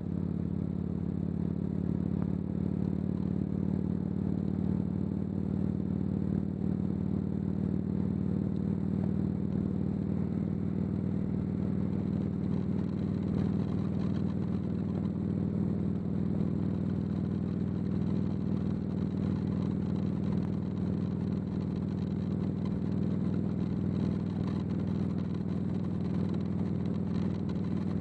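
Motorcycle engine running steadily at cruising speed, picked up by a camera on the bike behind its fairing, with a constant rush of wind and road noise.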